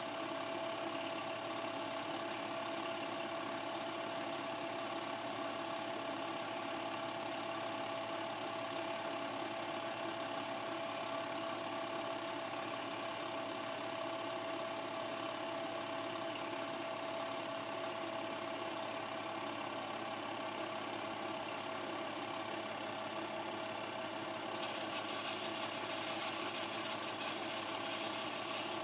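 Home-movie film projector running: a steady mechanical whirr and rattle with a constant hum tone, a little brighter and louder near the end.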